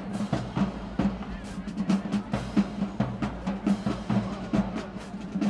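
High school marching band drumline playing: rapid, sharp snare strikes over a steady low drum beat.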